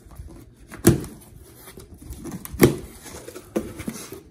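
Knife slitting packing tape on a cardboard shipping box and the box flaps being pulled open: rustling and scraping with three sharp rips or snaps, about a second in, near the middle and a smaller one near the end.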